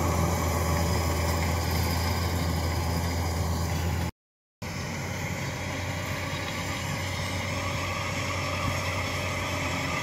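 Crawler rice combine harvester's diesel engine running steadily while it harvests. A deep hum dominates the first four seconds; the sound drops out for half a second, then the engine and threshing noise run on evenly.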